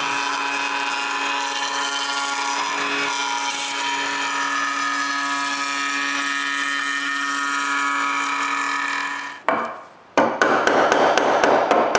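Electric wood router running at a steady high whine while routing a rabbet in a drawer frame. It stops abruptly about nine and a half seconds in, followed after a short pause by about two seconds of rougher cutting or scraping noise with many clicks.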